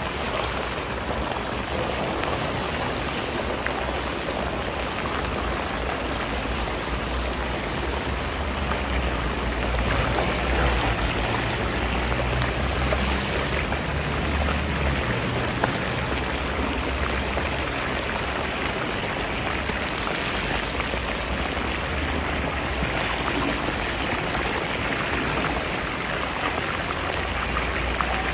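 Hot oil sizzling steadily as chunks of meat deep-fry in a huge cauldron, with a low rumble underneath.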